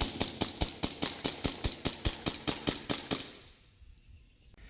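Redwings Rossi 1911-style gas blowback airsoft pistol firing a rapid string of shots, each one a sharp click-crack of the slide cycling, about seven a second. The shots stop about three seconds in.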